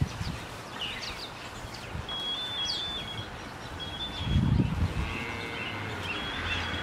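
Hand-held electronic ear-tag scanner wand giving short, stepped, two-pitch beeps several times as it reads calves' tags. Birds chirp alongside. A low bump about four and a half seconds in is the loudest sound.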